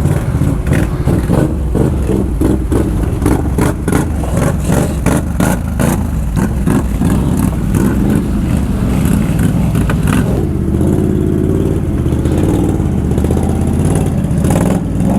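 ATV engine revving under load, with repeated knocks and clatter over the first ten seconds, then settling to a steadier engine note.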